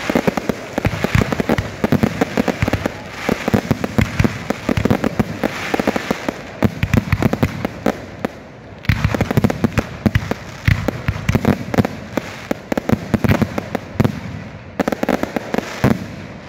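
Fireworks display: aerial shells bursting in a rapid barrage, many bangs a second, easing briefly a little past halfway before picking up again.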